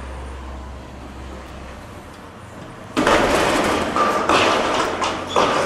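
Demolition work: a heavy machine's engine runs with a low steady hum, then about three seconds in a loud crash and a run of clattering impacts as rubble and debris break and fall.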